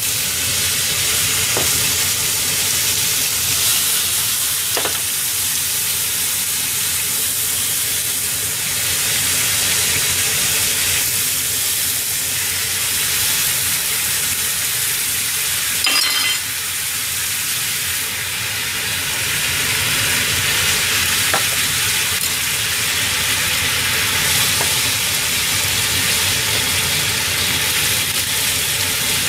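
Ground meat and tomato sauce sizzling steadily in a frying pan as it is stirred, with a few sharp clicks of the utensil against the pan, the loudest about sixteen seconds in.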